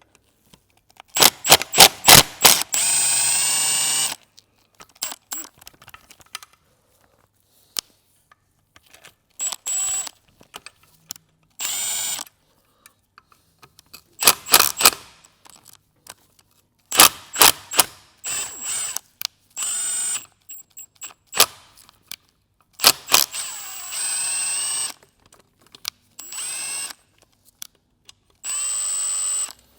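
Cordless impact ratchet undoing the small hex bolts of an oil pump housing in repeated short runs: each run starts with a rapid hammering as the bolt breaks loose, then the tool spins with a steady high whine. There are about eight runs, with short pauses between them.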